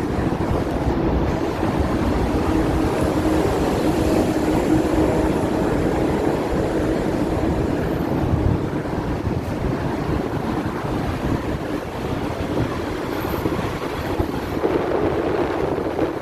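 Hong Kong double-decker tram running along its rails: a steady rumble, with a faint hum in the first half and wind buffeting the microphone.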